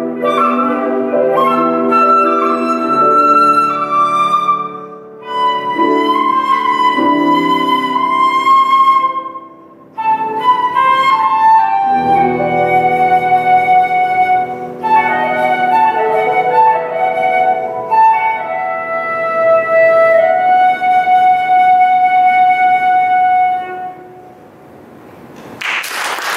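Concert flute with grand piano accompaniment playing the final phrase of the piece, ending on a long held flute note that fades away. After a brief hush, applause breaks out near the end.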